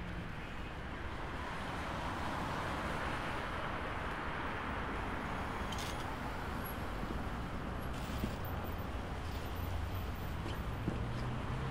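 City road traffic: a steady rush of tyres and engines from passing cars, swelling a few seconds in, with a low engine hum growing near the end.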